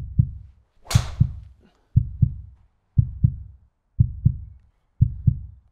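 Heartbeat sound effect: a low double thump about once a second, used to build tension. About a second in, one sharp crack of a driver striking a golf ball cuts through it.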